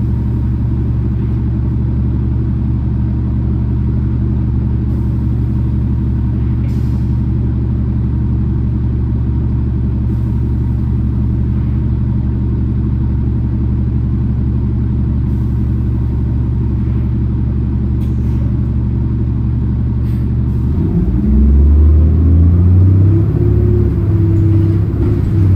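Orion VII city bus engine heard from aboard the bus, running at a steady low note, then about 21 seconds in revving up, rising in pitch and getting louder as the bus accelerates.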